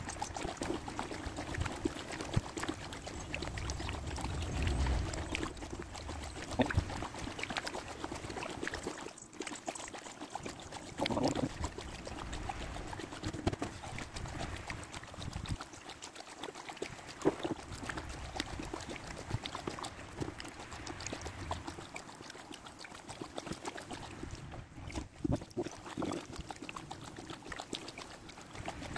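Kayak paddle strokes in calm canal water: the blades dip and splash irregularly, and water drips and trickles off them between strokes.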